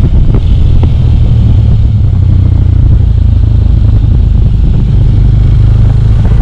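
Small Suzuki motorcycle's engine running steadily as it is ridden along at road speed, with a couple of faint clicks within the first second.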